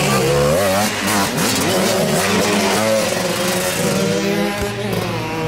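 Motoball motorcycle engine revving, its pitch rising and falling repeatedly as the throttle is worked.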